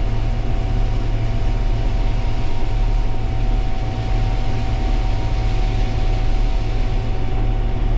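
Combine harvester running steadily while harvesting corn: a loud, even low drone with a constant high whine over it.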